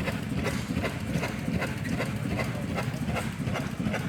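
A machine running with a steady low drone and a regular knocking beat, about three knocks a second.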